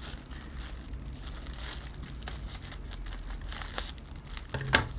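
Crinkling and rustling of a plastic shipping bag as it is cut open with scissors and pulled apart, with faint scattered snips, and one louder sharp sound near the end.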